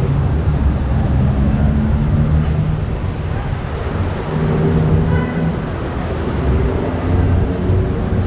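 Steady low rumble of motor traffic, with engine hum that swells and fades as vehicles pass.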